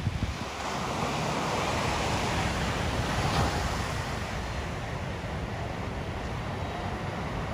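Ocean surf washing in, a steady rush that swells over the first few seconds and then holds, with wind rumbling on the microphone.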